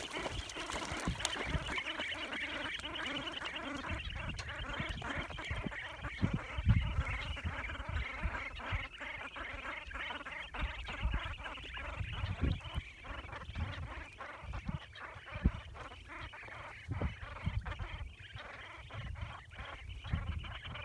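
Young shelduck from several broods calling together in a dense, continuous chatter of short, high calls. Irregular low rumbles and thumps sound underneath.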